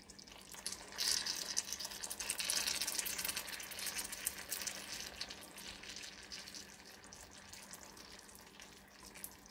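Hot caramel sizzling and crackling in a cast-iron skillet as pineapple pieces are set into it. The sizzle starts about a second in, is loudest for a few seconds, then dies down. A faint steady hum lies underneath.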